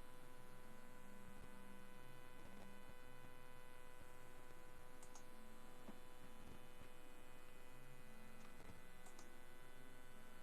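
Steady electrical hum from the recording's background, with a few faint clicks scattered through it.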